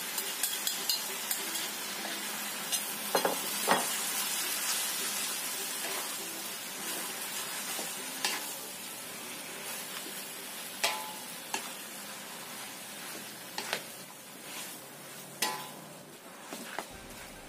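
Yellow noodles and vegetables sizzling in a hot wok as a wooden spatula stirs and tosses them, with scattered scrapes and knocks of the spatula against the wok. The sizzle eases a little toward the end.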